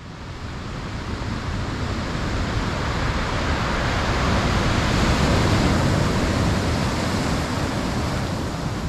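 A steady rushing noise, like surf or wind, that swells gradually to its loudest a little past the middle and eases off slightly near the end.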